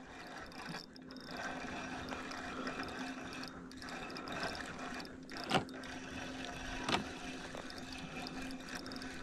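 Spinning reel being cranked while a fish is reeled in, with water lapping and sloshing around the boat. Two sharp clicks stand out, about five and a half seconds in and again about a second later.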